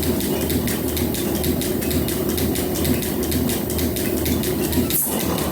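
Metal planer running a roughing cut on a steel bar with a swan-neck tool: steady machine noise with an even pulse of about three to four beats a second. A sharp click about five seconds in.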